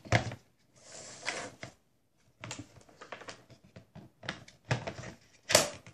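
Laptop battery pack being fitted back into an Asus K53S laptop: a run of sharp plastic clicks and knocks, with a short scraping rustle about a second in and the loudest click near the end.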